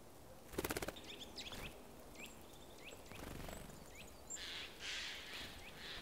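Small songbirds giving short, high, repeated chirps in winter woodland. About half a second in there is a brief, loud burst of rapid beats, like wings fluttering at take-off, and a short rushing flutter follows near the end.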